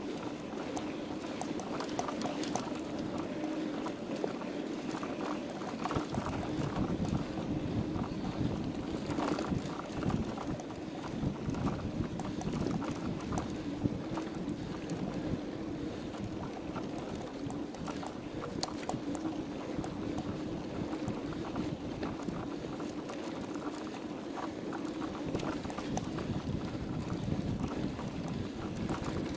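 Mountain bike rolling fast on a sandy dirt track: steady tyre noise with many small clicks and rattles from the bike jolting over bumps, and wind on the microphone.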